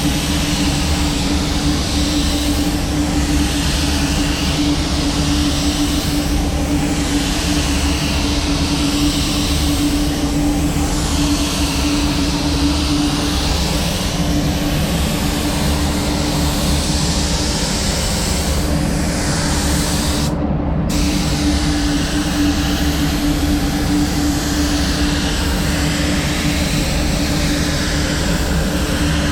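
Steady drone of a spray booth's ventilation fans: a constant hum with a hiss that swells and fades.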